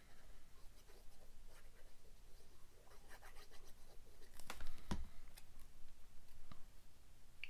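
Faint scratching of a glue bottle's nozzle drawn across the back of a small paper tag, then paper being handled and pressed down by hand. Two light clicks come about halfway through.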